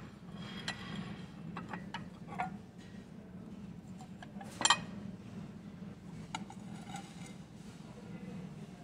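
Ceramic dinner plates clinking against each other as they are picked up and set down: a few light clinks, the loudest a quick double clink about four and a half seconds in. A steady low hum runs underneath.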